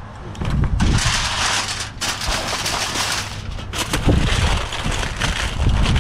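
Strong gusty wind blowing over the microphone: a low buffeting rumble under a rushing hiss, rising and falling with the gusts.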